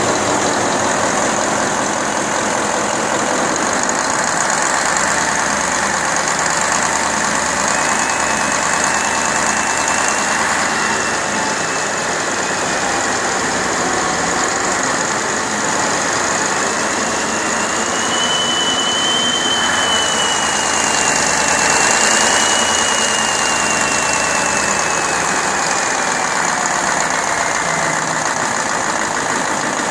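Freshly overhauled Deutz 1015 diesel engine running steadily, with a thin whistle that slowly rises and falls in pitch through the middle.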